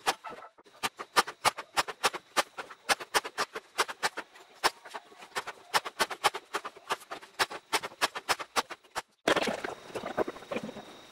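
A lever paper trimmer cutting strips of walnut and ash wood veneer: a quick run of sharp snapping clicks, about four a second. Near the end this gives way to the scraping of a brush spreading white wood glue on a wooden board.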